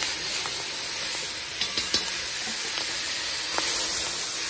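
Seasoned chicken sizzling steadily in browned sugar in a hot pot, with a few light spoon ticks. This is the browning stage of stew chicken, cooked in sugar with no oil.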